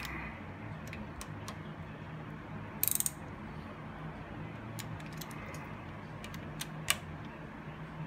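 Hand ratchet and socket clicking as the bolts of a motorcycle transmission side cover are snugged down: scattered clicks, a quick run of ticks about three seconds in, and a sharp click near seven seconds.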